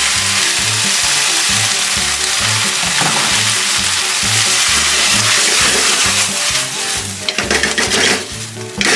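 Bean sprouts and pork belly stir-frying in a hot wok, sizzling hard with mirin just added, stirred with a ladle. The sizzle drops away about seven seconds in.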